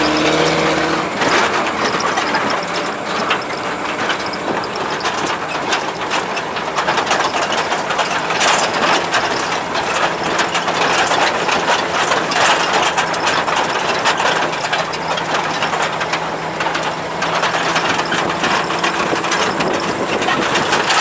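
GAZ-63 truck's inline-six side-valve petrol engine running steadily while the truck drives, under a constant clatter and rattle of the cab and body.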